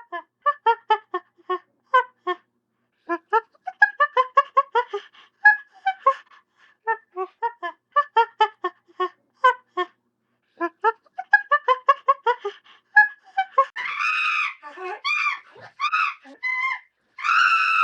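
Hanna-Barbera cartoon sound effect: a long run of quick, short, trumpet-like toots in bursts of several a second. From about two-thirds of the way through it changes to longer notes that swoop up and down in pitch.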